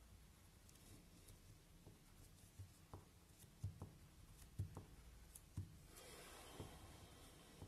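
Faint pen tip on paper: scattered light taps as dots are marked, then a longer scratching stroke near the end.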